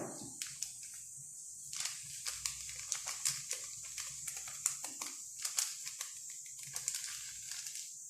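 Light, irregular clicks and taps of a utensil against a mixing bowl as flour and baking powder are stirred into a soft dough.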